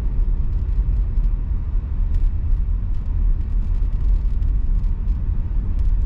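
Steady low rumble of a car's engine and tyres on the road, heard from inside the cabin as the car drives along.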